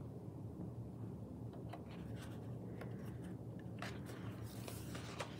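Paper rustling and crinkling in short scrapes as a picture book's page is handled and turned, loudest a little before the end, over a faint steady low hum.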